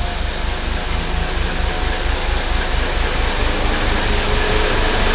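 ČD class 749 'Bardotka' diesel locomotive's V12 diesel engine working hard as it accelerates a passenger train, a deep rhythmic throb growing louder as the locomotive draws near and passes close by.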